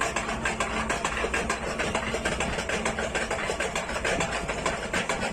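Mechanical hammering machine running, its vertical ram knocking in a fast, even rhythm of several blows a second over a steady machine drone.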